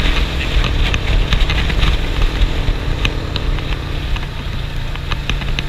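Motorcycle engine running steadily at cruising speed, heard from the rider's seat with a constant rush of wind noise over it.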